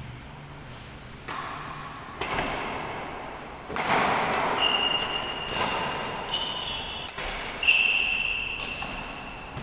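A badminton rally: a shuttlecock struck back and forth with rackets, sharp hits about a second apart ringing in a large hall. In the second half, sneakers squeak briefly on the court floor several times.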